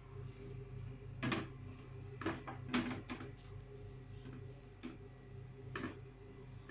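Hand mixing ground bread crumbs and milk into a dough in a glass bowl, with several short knocks and scrapes against the bowl over a steady low hum.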